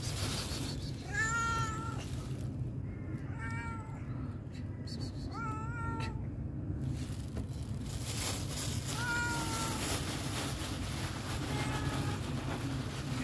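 A hungry black-and-white stray cat meowing for food: about five short meows a couple of seconds apart, each rising slightly and falling, over a steady low background hum.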